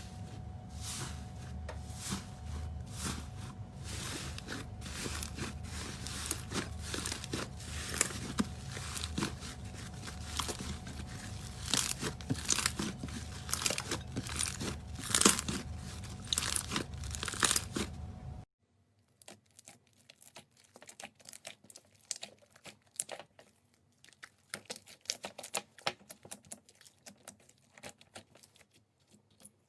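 Slime worked by hand, giving off dense crackling and popping clicks. About two-thirds of the way through it cuts abruptly to a much quieter stretch of sparser, sharper clicks.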